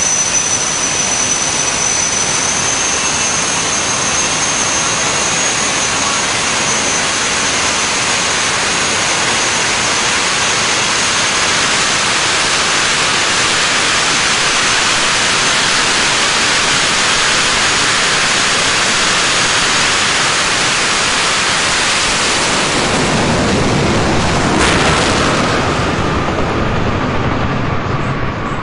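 Jet dragster turbine engines running at the start line: a steady loud jet roar with a high whine. About 22 seconds in the sound grows fuller and deeper as the jet cars launch, then falls away near the end.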